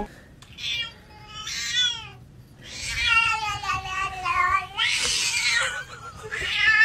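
Domestic cat meowing and yowling in about five drawn-out, wavering calls, the longest about two seconds in the middle. One call about five seconds in is rougher and breathier.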